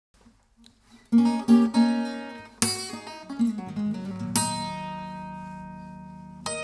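Acoustic guitar playing a song's intro: picked notes start about a second in, then come two strummed chords, the second left ringing and fading slowly before picking resumes near the end.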